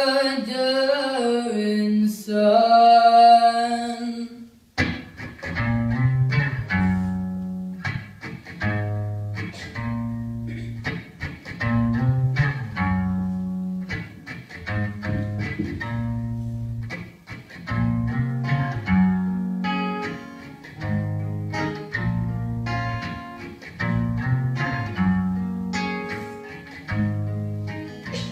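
An unaccompanied sung phrase ends about four seconds in. Two acoustic guitars then come in, strumming chords in a steady rhythm, with the bass notes changing about once a second.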